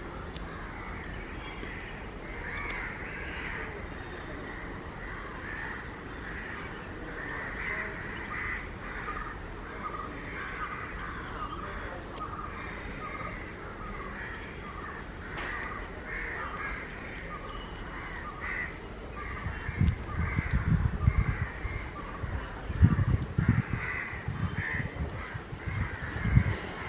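Many birds calling over and over in short calls. From about three-quarters of the way in, irregular low rumbling thumps break in, louder than the bird calls.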